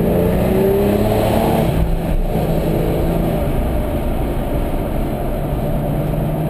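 Porsche's engine accelerating, its pitch rising over the first two seconds and then running at a steady speed, over a steady road and wind rumble.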